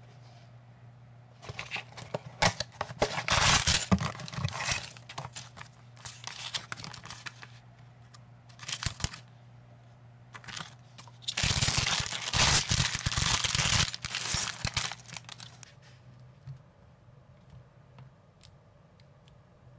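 Packaging of a small brick-toy set being opened: the cardboard box and its paper contents crinkle and tear in several bursts, the longest about halfway through. Near the end come a few faint clicks as plastic minifigure parts are handled.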